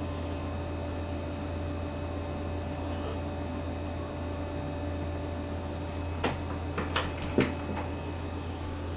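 Steady low electrical hum with a few faint steady tones above it, and a cluster of four or five sharp clicks and knocks about six to seven and a half seconds in.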